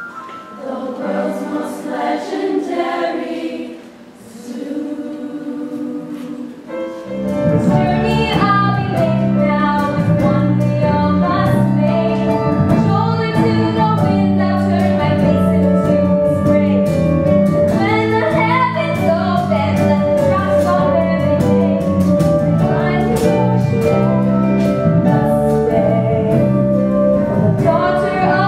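Live musical-theatre music: a choir sings over soft accompaniment, then about seven seconds in a fuller band comes in with a steady bass line under a solo female voice singing.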